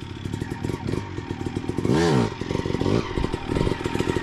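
2001 Honda CR250R's single-cylinder two-stroke engine idling, with a quick blip of the throttle about two seconds in and smaller blips after it.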